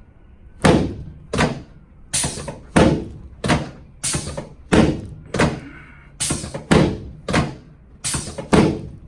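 A steady series of sharp thuds, about three every two seconds, from chiropractic adjusting thrusts on a patient lying face down on a treatment table.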